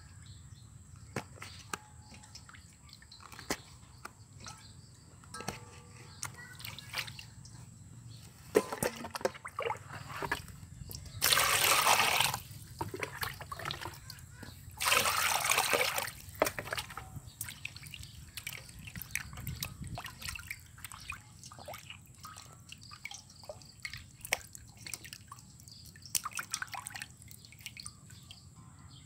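Water sloshing and dripping in a stainless steel bowl as gutted fish are washed by hand, with scattered small splashes and drips. Twice near the middle a louder rush of splashing lasts about a second and a half.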